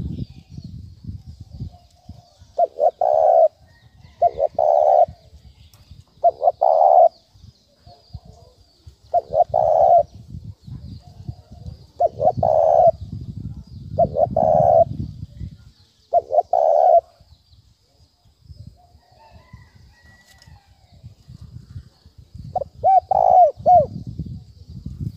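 Spotted dove giving its rapid 'thúc bổi' cooing: short coo phrases repeated every second or two, a pause of a few seconds, then more coos near the end.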